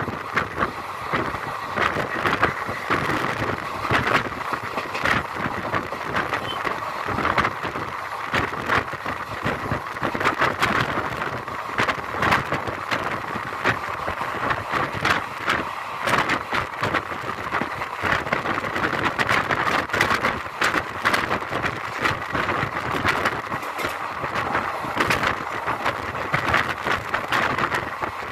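Express passenger train running, heard from on board: a steady rush of wheels on rails with frequent, irregular clattering and rattling.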